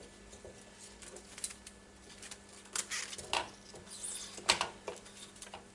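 Scattered clicks and light knocks from handling a Unitra ZK 120 reel-to-reel tube tape recorder, over a faint steady hum.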